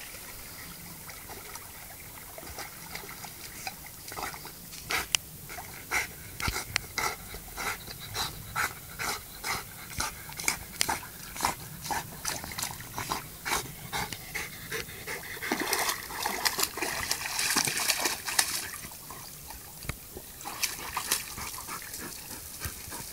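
A Labrador retriever panting hard as it swims, quick sharp breaths at about two a second. Past the middle there is a stretch of water splashing as it comes out, then the panting goes on.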